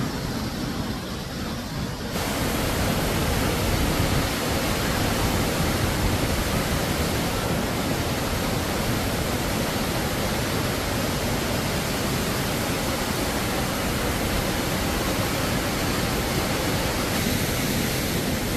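Waterfall: a steady rush of falling water, which suddenly becomes louder and fuller about two seconds in.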